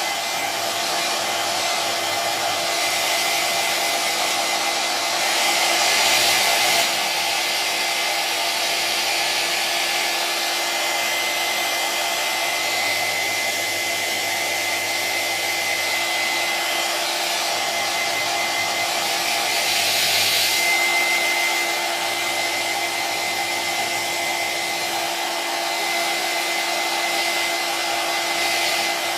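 Electric hair dryer running continuously: a steady rush of blown air over a constant motor hum with a high whine. The airflow swells briefly twice.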